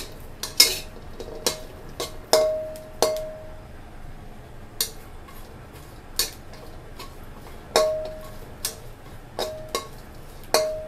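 Metal spatula knocking and scraping against a dry wok while dry-roasting herbal spices, garlic and coriander roots. About a dozen irregular strikes come roughly once a second, several of them leaving a short metallic ring.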